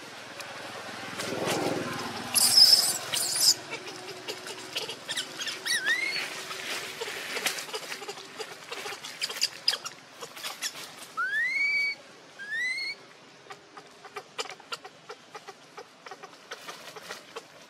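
Infant macaque giving a few short rising squeaks, spread through, while dry leaves crackle under it as it moves. A brief loud hiss about three seconds in is the loudest sound.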